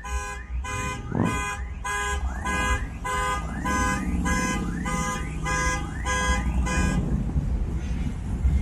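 A vehicle alarm sounding: a pitched electronic tone that swoops up and holds, repeating about twice a second, then stops about seven seconds in. A steady low rumble runs underneath.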